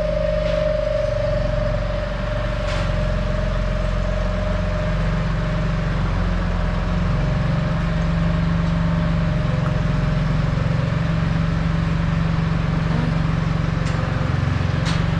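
Milking-parlour machinery motor running steadily with a constant low hum. A higher steady whine over it fades out over the first half.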